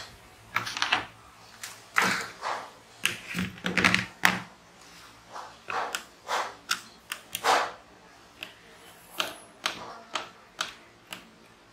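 Plastic clamp meter and its test leads being handled, then a small screwdriver working the screw of its battery cover: irregular clicks, taps and short scrapes.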